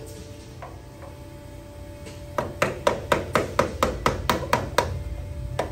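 Hammer striking a screwdriver wedged against the rear output seal of a GM transfer case, a quick run of sharp metal taps about five a second, collapsing the seal so it comes out. The taps start about two and a half seconds in, after a pause, and one more follows near the end.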